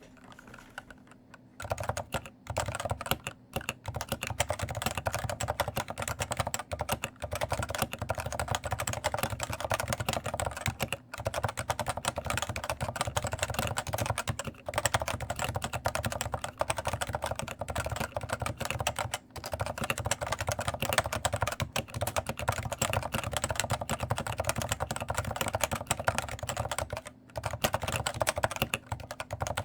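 Continuous fast typing on a stock, unmodified Cooler Master NovaTouch TKL keyboard, with Topre electro-capacitive switches under light keycaps that clack and rattle noticeably. The typing starts about a second and a half in and breaks off briefly a few times.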